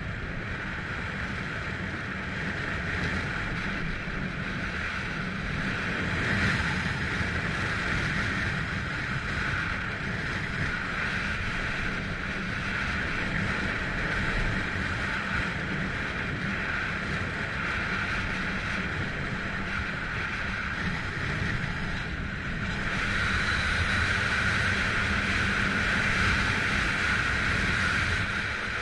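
Telemark skis hissing and scraping over groomed snow, with wind rumbling on the microphone. The hiss grows louder about three-quarters of the way through.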